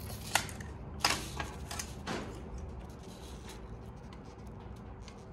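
Sharp clicks and short scrapes of hand tools being handled on a steel fabrication table while marking out a template, the loudest click about a second in. A low steady shop hum runs underneath.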